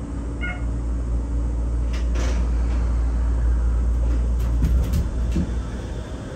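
Shonan Monorail 5000-series rubber-tyred suspended monorail car running along its track, heard from inside the car: a steady low rumble with scattered knocks and rattles, and a brief high beep about half a second in.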